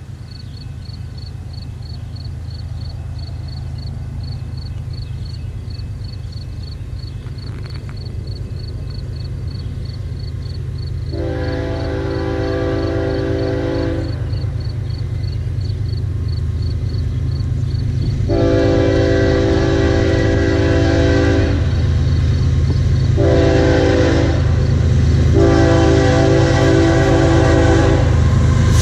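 Approaching train, its low rumble growing steadily louder, while its horn sounds the grade-crossing signal: two long blasts, a short one, then a long one.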